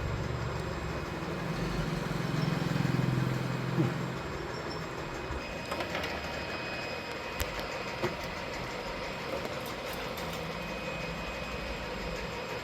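Steady low background rumble and hum, heavier for the first few seconds, with a few faint clicks and taps as small front-panel connectors are fitted onto the motherboard pins.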